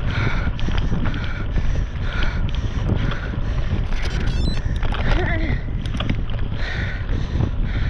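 Wind noise on a GoPro action camera's microphone on a mountain bike: a steady, heavy low rumble from the wind and the tyres on rough ground, with a brighter sound that comes back about twice a second.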